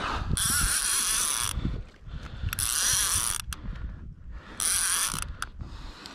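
Fishing reel whirring and ratcheting in four bursts of about a second each while a hooked fish is fought.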